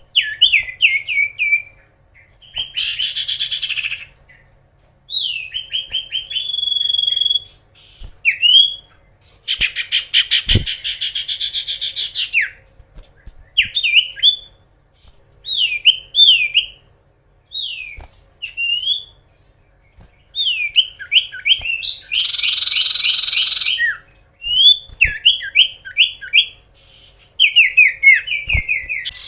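Common iora (cipoh) singing steadily: bursts of quick, repeated down-slurred whistled notes alternating with longer harsh, buzzy chattering trills, with a few soft knocks between phrases.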